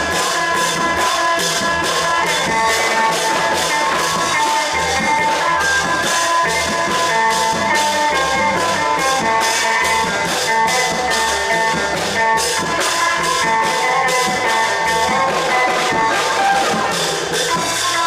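Thai long-drum (klong yao) ensemble playing: a fast, even beat of drums and cymbals at about four strikes a second, with a melodic line over it.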